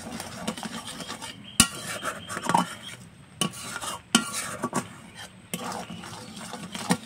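A metal spoon stirring and scraping through boiling milk and sugar in a kadai as it is cooked down into kheer, with irregular clinks against the pan. One sharp knock comes about one and a half seconds in.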